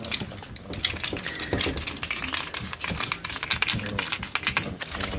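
American Bully puppies scrambling and pawing at each other on a padded mat, making a quick, uneven run of light clicks and scratches.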